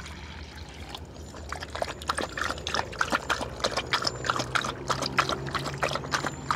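Belgian Malinois lapping water from a bowl: a run of quick, irregular wet laps, starting about a second in.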